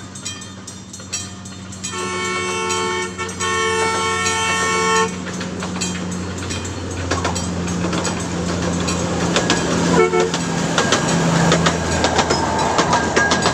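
A small train approaching and passing on a museum track: its two-note horn sounds twice about two seconds in, each blast a second or more long, and a short toot follows about ten seconds in. Under it a steady engine drone runs, with wheel clicks over the rail joints growing denser in the second half.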